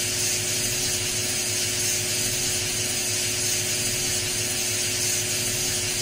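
Steady background hiss with a faint constant hum, and no distinct events.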